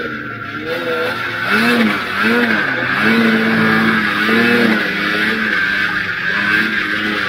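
Old Ski-Doo Formula Z snowmobile's two-stroke engine running under way through deep snow, its pitch rising and falling several times as the throttle is worked, over a steady rushing noise.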